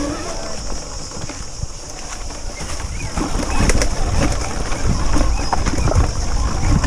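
Ride noise of an electric dirt motorcycle on a rough trail: a constant low rumble of wind and vibration on the bike-mounted microphone, with no engine note. From about three seconds in come clattering knocks as it rolls over rocks, and a steady high hiss runs underneath.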